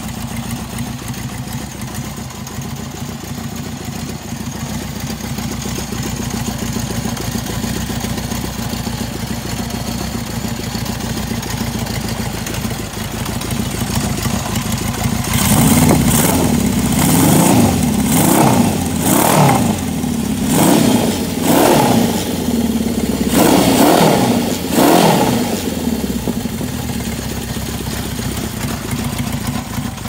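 Honda CB750 inline-four through custom side pipes, idling steadily, then given a string of about six quick throttle blips about halfway through that rise and fall sharply before it settles back to idle.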